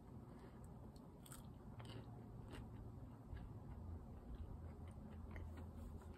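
A person biting into and chewing a crinkle-cut french fry, quietly, with small scattered mouth clicks.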